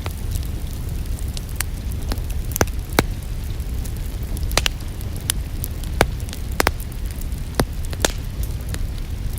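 Wood fire in a fireplace crackling, with sharp pops every half second or so over a steady low rumble of flames, mixed with the even hiss of rain.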